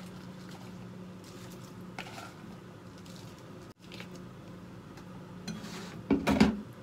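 Chopped Chinese cabbage sliding and dropping from a plastic bowl into a pan of broth, soft rustles and plops over a steady low hum. Near the end, a short loud clatter of knocks as the plastic bowl is set down.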